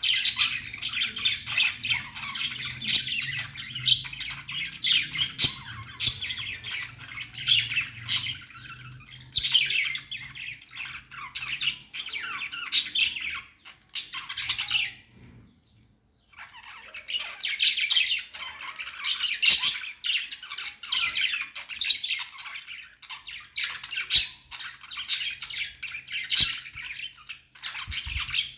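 Budgerigars chattering, a dense run of quick chirps, warbles and sharp squawks. The chatter breaks off for about a second around the middle, then starts again just as busily.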